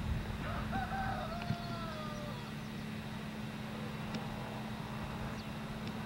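A rooster crows once, a drawn-out call that holds and then falls in pitch at the end, over a steady low hum.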